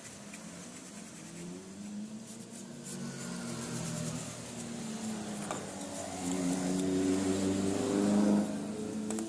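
A road vehicle's engine running and revving, rising in pitch and growing louder toward the end, then dropping off sharply, over the soft rubbing of a cloth wiping the inside of a hand planer's housing.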